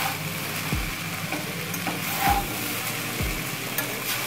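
Broccoli fried rice sizzling in a stainless steel kadhai on full heat while a steel spatula stirs and tosses it. Dull strokes of the spatula against the pan come about once a second.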